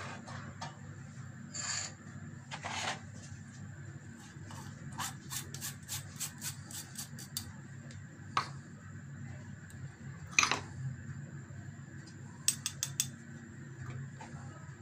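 Metal mesh flour sieve being shaken and tapped as gram flour is sifted into a plastic bowl. There is a quick run of light taps in the middle, then a few single louder knocks, over a steady low hum.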